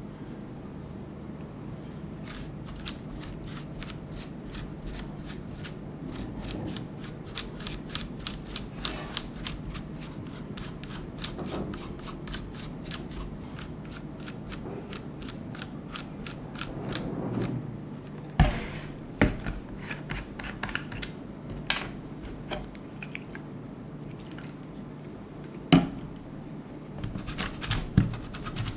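A mechanical keyboard being cleaned by hand: a long run of rapid small clicks and rubbing, followed by a handful of louder, sharper knocks in the second half.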